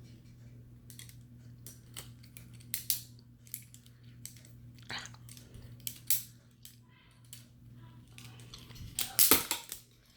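A plastic LEGO Technic butterfly knife being flipped: irregular clicks and clacks of the plastic handles swinging and knocking together, with the loudest cluster of clacks near the end. A steady low hum runs underneath.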